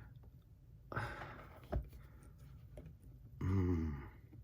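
A man exhales audibly about a second in, a single sharp click follows, and near the end he makes a short wordless vocal sound, the loudest thing here.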